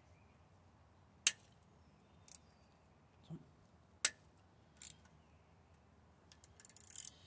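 Socket on a flexible extension working a stubborn engine bolt: two sharp metal clicks about three seconds apart, a few fainter ticks between, and a run of light rattles near the end. The extension is flexing rather than turning the bolt, which he thinks is just breaking the extension.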